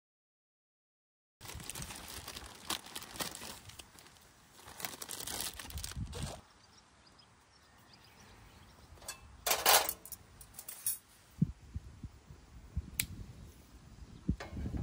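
Camp gear being handled while a fire is set up in a box-shaped fire pit: irregular rustling and crinkling with light metal clinks. A sharper clink comes about ten seconds in, and there are a few small ticks near the end.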